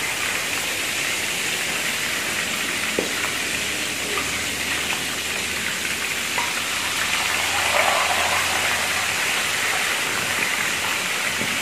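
Pork belly deep-frying in hot oil in a wok, a steady sizzle through the first fry of lechon kawali, with a few light clicks of the metal ladle and spatula as the slab is turned.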